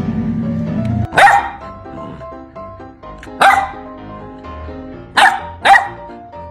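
Golden retriever puppy barking: four short barks, the first about a second in and the last two close together, over background music.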